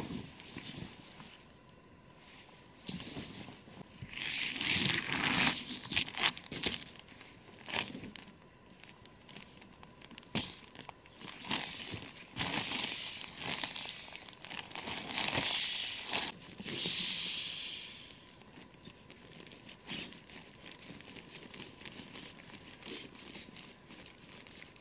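Stiff canvas cloth rustling and flapping as it is shaken out and spread over dry fallen leaves, with the leaves crunching under boots and knees. It comes in uneven bursts with quieter pauses between.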